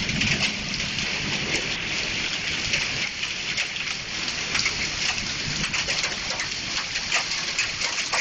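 Large hailstones and rain pelting down in a storm: a dense steady hiss with many sharp ticks of hailstones striking.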